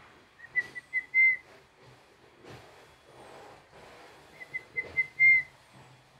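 A person whistling to a European robin: a few quick short notes, then one longer note, twice, about four seconds apart.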